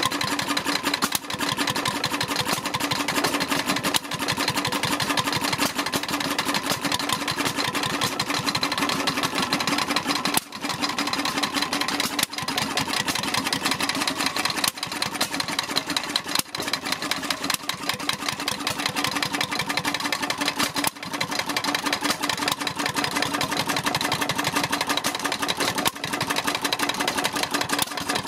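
H V McKay Sunshine portable engine running steadily, with a rapid, even clatter from its firing and valve gear.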